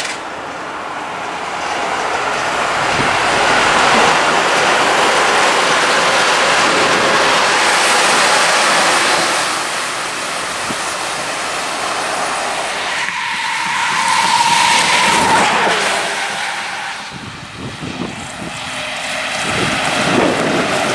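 Double-decker bus passing along a concrete guided busway: a broad rush of engine and tyre noise that swells to its loudest a few seconds in and fades as the bus moves away. A second swell of vehicle noise follows, with a brief steady whine partway through, and the noise rises again near the end.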